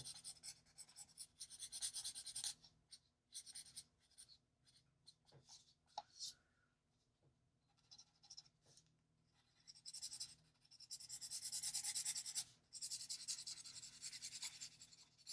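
Ohuhu alcohol marker stroking over paper: faint, quick scratchy strokes in short runs, a pause in the middle, then a longer run of rapid back-and-forth strokes near the end.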